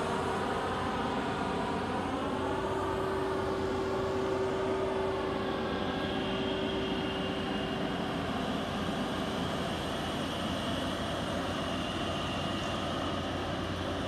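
Gas-powered saw cutting asphalt, running at a steady engine drone. A thin high whine joins about halfway through.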